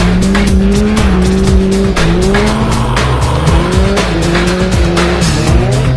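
Single-seater formula race car's engine revving up and dropping back several times as the car drifts on snow.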